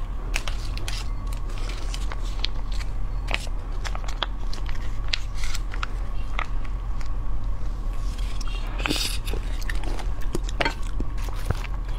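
Close-miked eating: a person biting into and chewing crunchy raw dipping vegetables, with irregular crisp crunches throughout.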